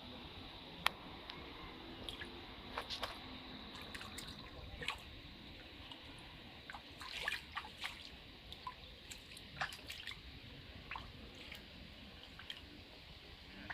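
Rainwater dripping in scattered, irregular drops, each a short sharp tick over a faint steady hiss.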